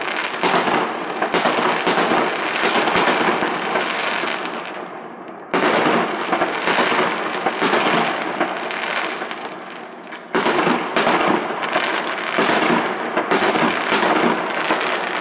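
A fireworks battery firing aerial shells in rapid succession: repeated sharp bangs over dense crackling. The firing dies away about four to five seconds in and starts again abruptly around five and a half seconds. It fades once more and resumes suddenly about ten seconds in.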